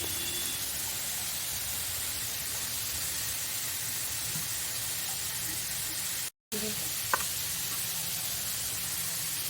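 Steady sizzling of food roasting in a hot pan on a gas stove. It cuts out briefly about six seconds in, and there is a single light click about a second later.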